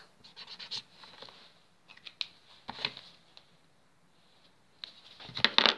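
Paper being handled: soft rustles and small clicks, with a louder burst of rustling and handling noise near the end.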